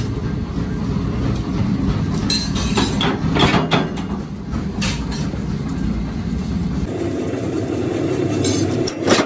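Flywheel-driven mechanical power press running with a steady hum, with several sharp metal clanks from its strokes as iron trowel blanks are punched in the die, the loudest clank near the end.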